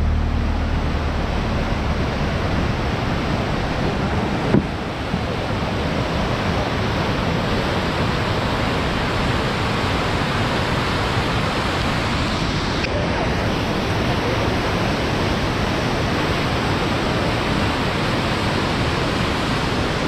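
Muddy floodwater churning through river rapids: a steady, loud rush of water. A single short knock comes about four and a half seconds in.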